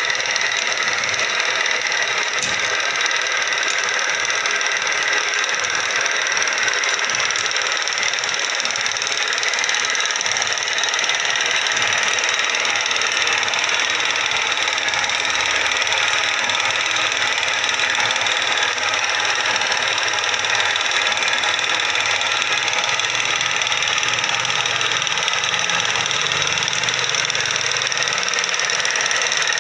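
Homemade belt-driven slotting attachment running on a lathe. Its crank disc and connecting rod drive the carriage and cutter back and forth, slotting an internal keyway in a plate held in the chuck. The result is a loud, steady mechanical running noise.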